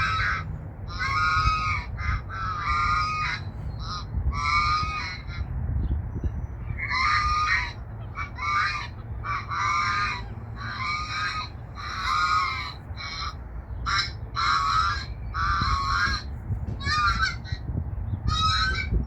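Geese honking over and over, about one call a second, with a steady low rumble underneath.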